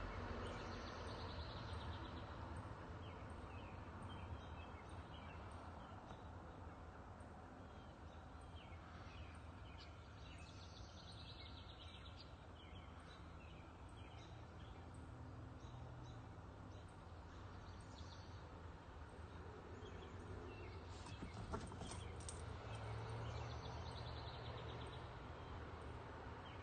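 Faint outdoor background hum and hiss with scattered faint high bird chirps.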